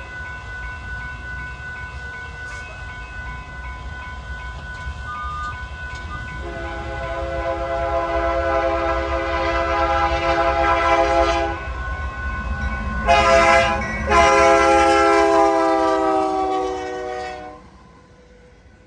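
Diesel locomotive's multi-chime air horn blowing over the rumble of the passing train: a long blast, a short one, then a final long blast whose pitch slides down as the locomotive goes by. The horn then stops and the train noise falls away.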